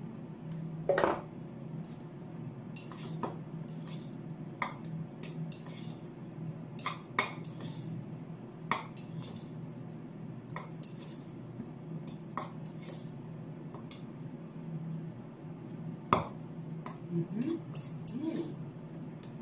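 Metal cutlery scraping and clinking against a metal bowl as couscous is stirred, in short irregular strokes with a few sharper clicks, over a steady low hum.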